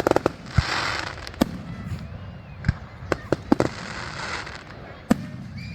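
Fireworks display: a quick cluster of bangs at the start, then single sharp bangs every second or so. Two stretches of fizzing crackle, one about half a second in and one near the middle, come from crackling shells.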